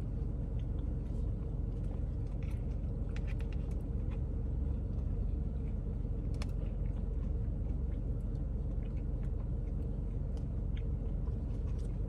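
A steady low rumble with a faint steady hum, and a few faint clicks and chewing sounds of someone eating frozen custard.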